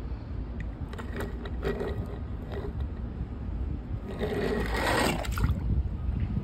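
Die-cast toy car handled with light clicks, then a louder rushing scrape and splash about four seconds in as it slides down a plastic slide into a shallow paddling pool of water. A low wind rumble on the microphone runs underneath.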